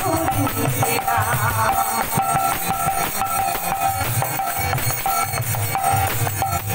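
Bengali folk song performance (lokgeeti) coming over a PA loudspeaker: a drum beat keeps time under a repeating melody line.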